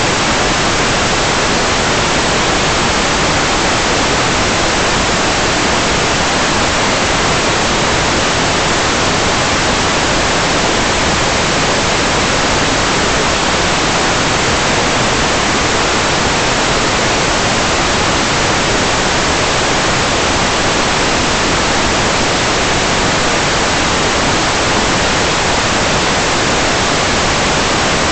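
Loud, steady static hiss that never changes in level or pitch, spread evenly from low to high.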